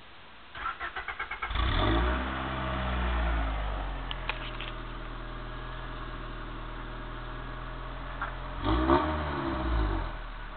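Honda B16A DOHC VTEC four-cylinder engine, heard at the exhaust tip of a 1989 Civic hatchback: the starter cranks for about a second, the engine catches and flares up, settles to a steady idle, then is revved twice briefly near the end.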